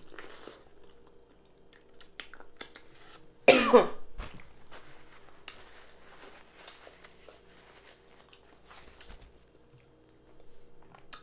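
One short, loud cough about three and a half seconds in, between soft chewing and mouth clicks from eating with the hands.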